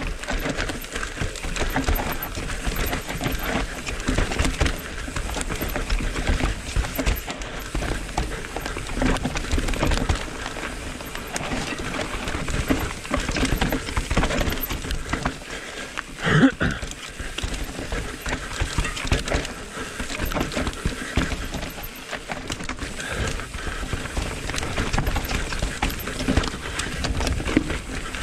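Mountain bike riding fast down a rough dirt forest trail: tyres rolling over dirt and roots, with the frame, chain and components rattling and knocking without a break. A louder clatter comes about sixteen seconds in.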